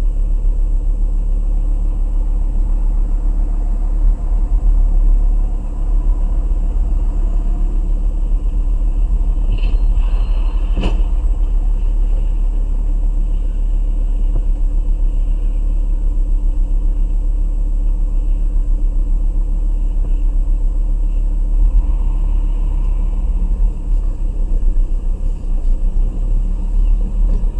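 Steady low rumble of a car's engine and road noise heard from inside the cabin. About ten seconds in comes a brief high squeal, then a single sharp bang: a Lada sedan running into the back of a box truck.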